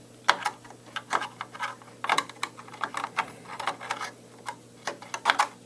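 Irregular light clicks and taps of a RAM stick being worked into a desktop's memory slot and its plastic latches.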